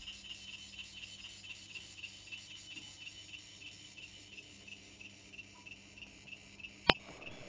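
Faint insect chirping, a high, evenly pulsing trill, with a single sharp click about seven seconds in.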